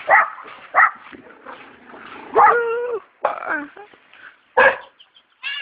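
A dog barking repeatedly: several short barks and one longer, drawn-out call about two and a half seconds in.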